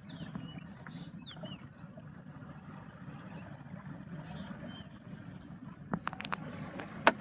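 Gill net being hauled by hand over the side of a small boat, over a low steady rumble; a few sharp knocks come near the end, the loudest just before it ends.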